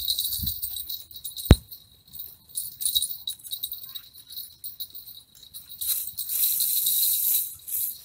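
Spinning reel being cranked to retrieve line, a fast, high-pitched ticking whirr that comes and goes and is strongest near the end, with one sharp click about a second and a half in.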